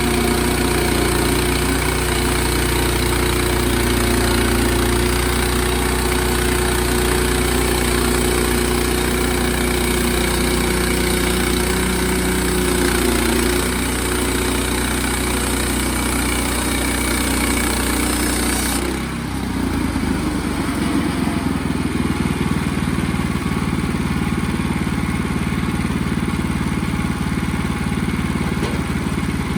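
Sawmill's gasoline engine running steadily, with a high hiss over it that stops abruptly about two-thirds of the way through; the engine keeps running after that with a changed tone.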